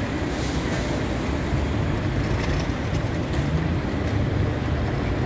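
Steady road traffic noise from a busy city street, with a constant low hum of vehicle engines.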